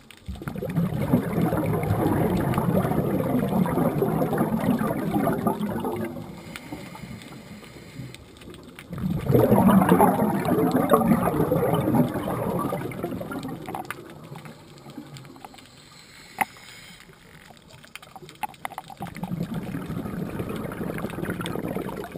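Scuba diver's exhaled air bubbling out of the regulator, heard underwater. It comes in three bursts of a few seconds each, with quieter gaps between breaths; the middle burst is the loudest.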